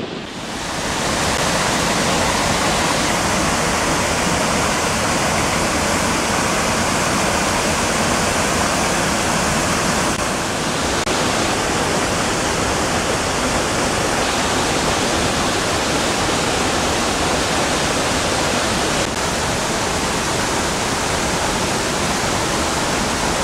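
Rushing water of a mountain stream, a loud steady rush that sets in about half a second in.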